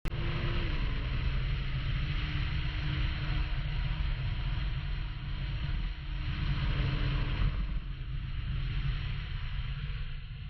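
Steady rushing noise with a deep rumble underneath, easing off near the end.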